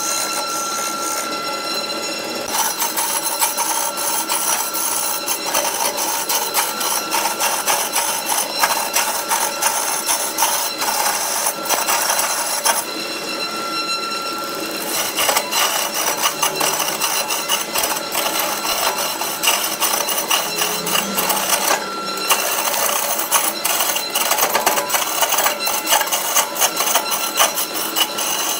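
Wood lathe running with a hand-held turning tool cutting and scraping a spinning wooden blank: a continuous rough, chattering scrape of steel on wood over the machine's steady hum. The cutting eases briefly about halfway.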